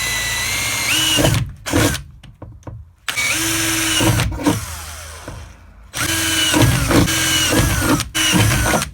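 Power drill boring holes in the van's sheet-metal body. The motor runs in three bursts, its whine stepping up in pitch as it spins up, with knocks between bursts. After the second burst the motor slowly winds down.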